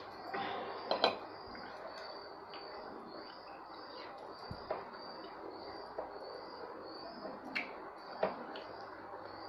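Fingers mixing rice and dal on a stainless steel plate, with soft scraping and a few short clicks against the metal.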